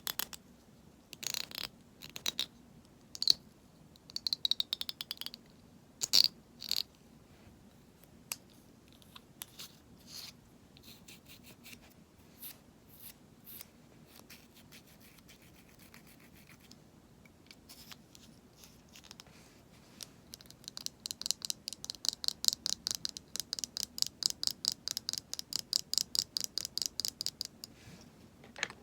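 Cosmetics being handled for ASMR: scattered taps and scratches on cosmetic containers. About twenty seconds in comes a fast, even run of scratching strokes, roughly nine a second, lasting about seven seconds.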